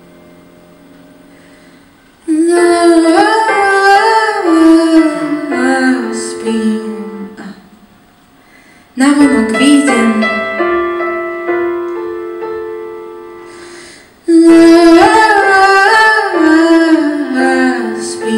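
A woman singing live over keyboard chords. After a soft held chord, her voice comes in three long phrases, about two, nine and fourteen seconds in, each starting loud and fading away.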